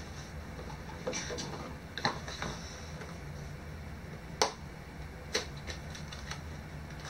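Small cardboard boxes being handled and opened: rustling with a few sharp cardboard clicks and taps, the loudest a little past halfway, over a steady low hum.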